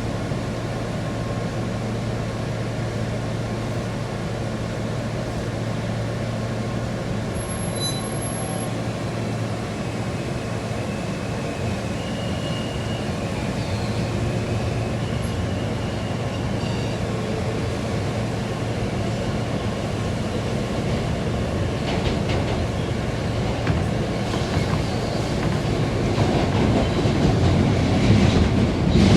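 R160A New York subway train running, with a steady low hum under the rumble of the cars and a few faint high wheel squeals partway through. The sound grows louder over the last few seconds.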